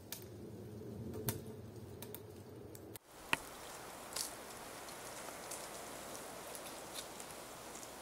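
Pine branches and needles rustling, with scattered snaps and knocks, as a climber moves up through a pine tree. Before that, for about the first three seconds, there is a low steady rumble with a few clicks, and then the sound changes abruptly.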